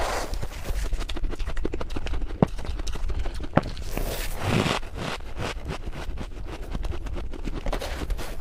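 Close-miked chewing of freezer frost: a steady run of small crisp crunches. About four seconds in, a louder rushing scrape as a metal spoon scoops up powdery frost.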